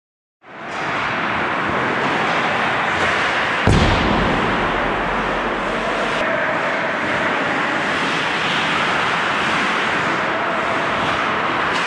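Ice hockey game in an indoor rink: a steady hiss of skates on ice and play, with a loud knock about four seconds in and a few fainter clicks.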